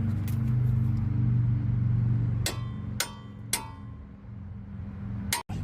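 A steady low hum, then three sharp metal-on-metal clinks about half a second apart, each ringing briefly, and one more click near the end: steel tools striking the strut assembly during a strut replacement.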